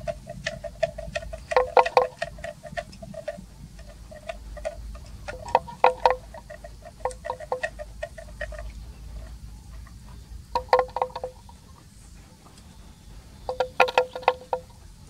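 Neck bell on a grazing water buffalo clinking, in short bursts of quick strikes every few seconds with a two-note ring.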